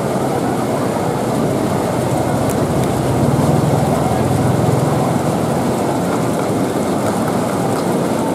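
Steady vehicle engine and traffic noise, with an engine's low hum growing louder in the middle and easing off about five seconds in.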